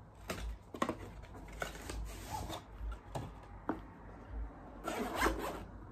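Handling a GoPro box and its black soft carrying case: cardboard and fabric rubbing and scraping in short strokes, with a longer rasping stretch about five seconds in.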